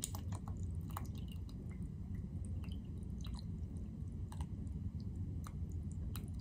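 Thick coconut milk pouring from a tin into a glass bowl of batter: soft, wet gurgling with scattered small clicks, over a steady low hum.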